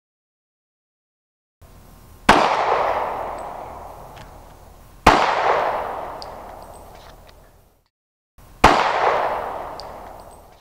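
Three gunshots a few seconds apart, each a sharp crack followed by a long echoing tail that dies away, firing Winchester 180-grain jacketed hollow-point rounds in a ballistic vest test.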